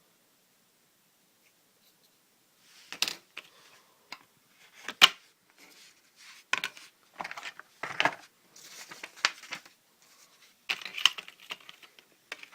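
Packaging and small parts being handled: an irregular run of rustles, scrapes and sharp clicks, starting about three seconds in.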